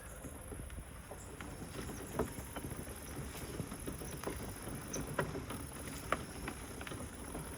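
Mobility scooter driving along a narrow lane: a steady low motor and tyre noise with frequent light clicks and rattles.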